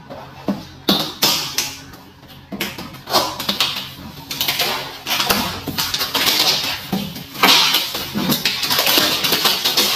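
Cardboard box and plastic packaging being opened by hand: a few sharp clicks in the first second, then repeated crackling and rustling as flaps and wrapping are pulled.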